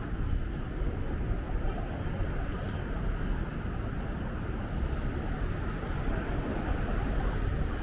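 Wind buffeting the microphone, a steady, gusting low rumble over the noise of a city street.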